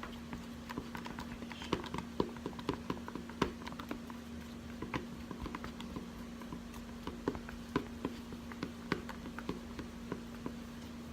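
A stirring utensil clicking and tapping irregularly against the sides of a container, several times a second, while mixing glue and glitter for slime.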